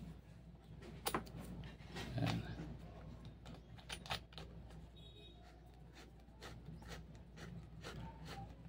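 Faint scattered clicks and plastic rustling as a handheld long-range locator in its clear plastic wrapping is turned over in the hands. The clicks come thicker near the end.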